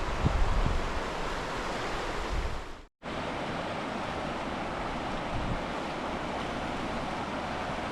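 Steady rushing of river water, with wind buffeting the microphone in the first few seconds. The sound cuts out for a moment about three seconds in, then the water noise goes on evenly.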